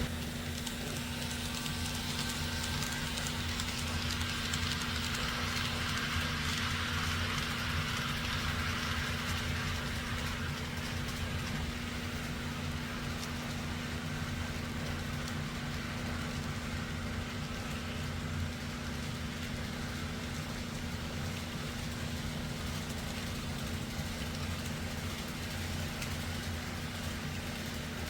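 N scale model train running on Kato Unitrack: a steady motor hum with a rolling hiss of wheels on rail that swells and fades over the first ten seconds as the train passes close, and one small click about eighteen seconds in.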